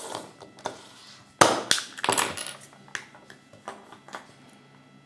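Small plastic toy pieces clicking and tapping as they are handled and fitted together by hand. A sharp loud click comes about a second and a half in, a quick cluster of clicks follows, and then lighter ticks.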